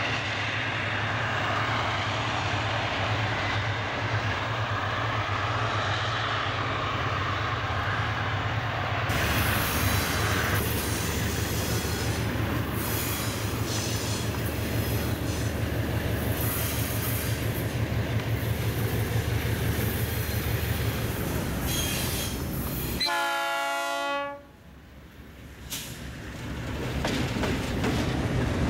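Diesel freight locomotives running past at close range: a steady engine drone with wheel and rail noise. About three-quarters of the way through there is a short horn blast, then the sound drops away briefly before the locomotive drone comes back.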